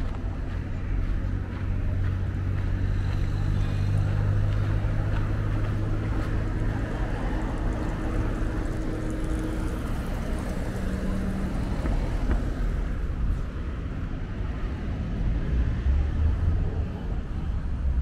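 A motor vehicle's engine humming steadily over city street noise, fading after about ten seconds, then another low rumble swelling near the end.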